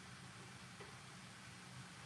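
Near silence: a faint steady hiss with a low hum.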